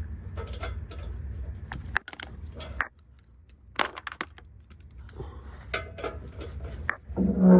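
Hand tools and sockets clinking and knocking in scattered sharp metallic clicks while exhaust bolts are worked on from under a car, with a louder clank near the end.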